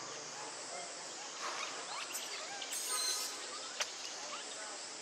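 Juvenile long-tailed macaques give short squeaks and one brief high squeal about three seconds in, over a steady insect hiss, with a single sharp click near four seconds.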